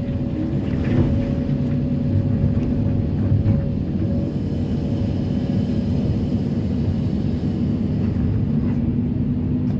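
Kobelco SK330-10 crawler excavator's diesel engine running steadily under hydraulic load as the bucket works in broken rock, heard from inside the cab. A thin whine over the engine fades out about halfway through, and there are a few light knocks about a second in.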